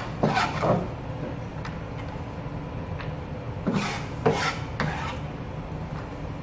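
Chef's knife slicing and scraping red onion on a plastic cutting board: a couple of rasping strokes about half a second in, then three or four more between about four and five seconds in, over a steady faint hum.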